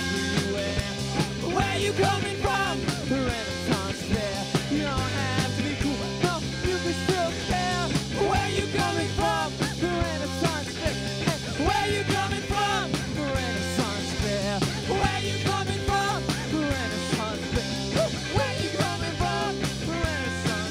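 Live rock band playing a fast song with a steady, driving beat.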